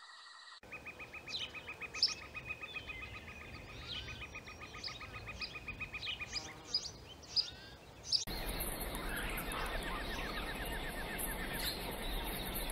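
Wild nature ambience: birds chirping, with a rapid, evenly pulsing trill running for several seconds. About eight seconds in, it cuts abruptly to a denser ambience with a high insect buzz and a low rumble.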